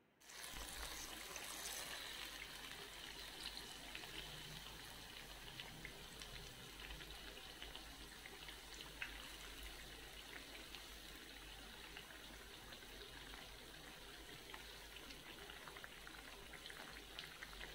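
Batter-coated banana fritters deep-frying in hot oil: a faint, steady sizzle full of tiny crackles, with one sharper click about nine seconds in as they are turned over with a fork.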